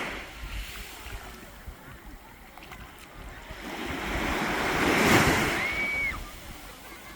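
Sea waves breaking and washing up the beach, one wave swelling to a peak about five seconds in and then fading, with wind buffeting the microphone. A short high-pitched cry comes just after the wave's peak.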